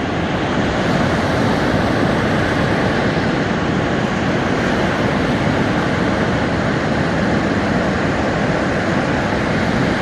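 Surf breaking and washing up on a sandy beach: a steady, even rush of waves.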